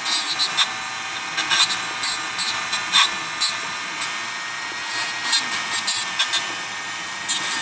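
Dremel rotary tool running with a steady high whine, grinding down the over-sharp edge of a typewriter paper bail detent, with short scratchy bursts each time the bit touches the part.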